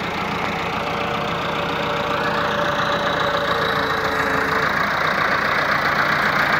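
Massey Ferguson 385 tractor's four-cylinder diesel engine running steadily, growing gradually louder toward the end.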